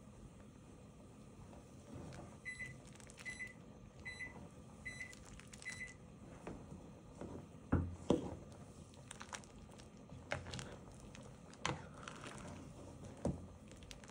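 Five short electronic beeps a little under a second apart, as from a kitchen appliance signalling. Then a ladle stirring a pot of curry, knocking against the aluminium pot several times, the loudest knocks around eight seconds in.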